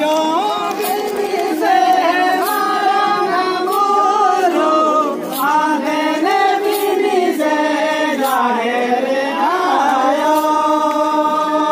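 A group of voices singing a Santali folk song together in unison, in long held phrases that rise and fall in pitch, with a sharp percussion strike now and then.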